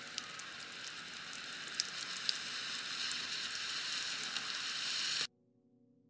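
Heavy rain falling steadily, with a few sharper clicks of single drops landing; it cuts off suddenly near the end.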